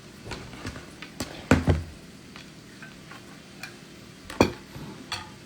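Scattered knocks and clicks of things being handled and set down, about eight or nine separate taps over a low steady hiss; the sharpest come about a second and a half in and near the end.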